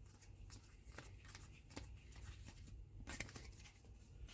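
Faint clicks and light rustles of trading cards being handled and slid past one another, with a sharper tick about three seconds in.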